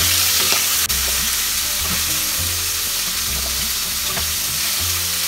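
Catfish pieces shallow frying in hot mustard oil, a steady dense sizzle with crackle, and one sharp tick about a second in.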